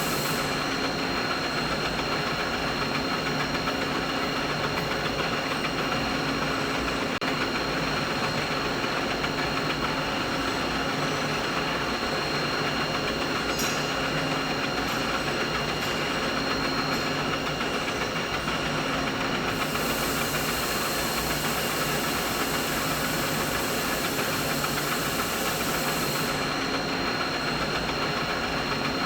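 Steady machinery running noise: an even mechanical hum and hiss at constant level, with a faint unchanging high whine. The thin hiss at the very top drops away shortly after the start and returns for several seconds past the middle.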